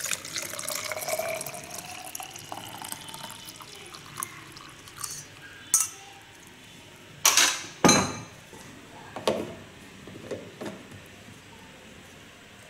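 Milk poured from a steel pan through a stainless steel mesh strainer into a baby bottle, the filling sound rising in pitch over the first few seconds. Then scattered clinks and knocks as the pan, strainer and bottle are handled and set down, the loudest pair about seven to eight seconds in.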